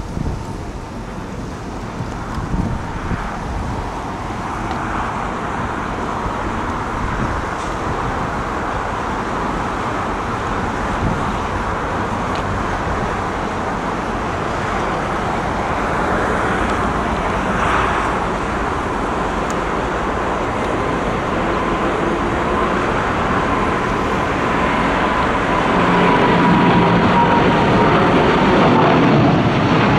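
Jet engine noise of a Boeing 777-200ER airliner building steadily louder, with a thin whine that slowly falls in pitch, over a wash of road traffic.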